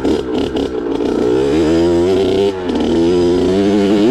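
Kawasaki KX65's two-stroke single-cylinder engine revving up and down under throttle while riding, with a short drop in revs about two and a half seconds in.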